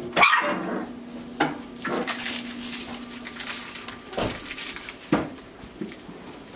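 Boxer puppies playing on a tile floor: scattered sharp knocks and clatters with scuffling, the loudest just after the start, over a steady low hum.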